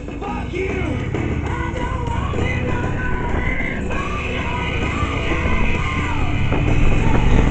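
Rock music with a shouted, singing voice and guitar, over the low steady drone of a motorcycle engine and wind that grows louder near the end.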